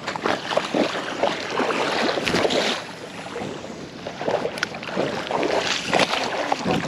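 Rain-jacket fabric rustling and rubbing close to the microphone, with irregular scuffs and knocks from handling the fishing rod and shifting on the rocky shore.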